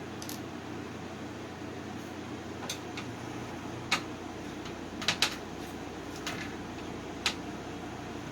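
Scattered sharp clicks and taps of tools and parts being handled while an electronics receiver is taken apart, over a steady fan-like background hum. Two clicks come close together about five seconds in.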